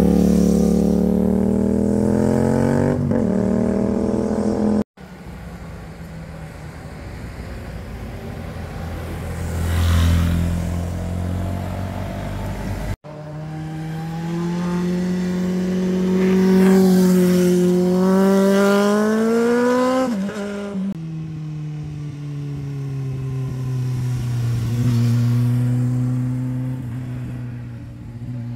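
Motorcycles passing one after another through a hairpin bend. Each engine note rises as the bike accelerates out of the corner and drops away as it goes by. The sound cuts off abruptly twice, between bikes.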